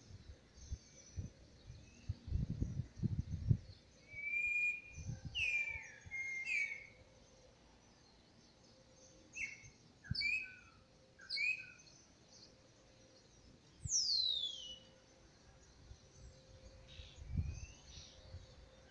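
Small songbirds chirping in short clusters, with one long whistled note falling in pitch a little past the middle. Underneath are a few low, muffled scuffs and thumps.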